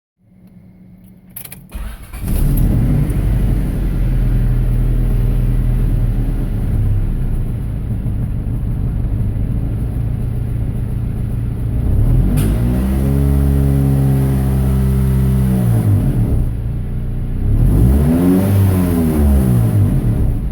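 1999 Honda Civic's D15/D16Y8 'mini me' four-cylinder engine starting and settling to an idle, then revved twice: once held for about three seconds, then a shorter rev near the end. The owner reports a misfire after VTEC engages, which he suspects is a sticking rocker-arm crossover pin.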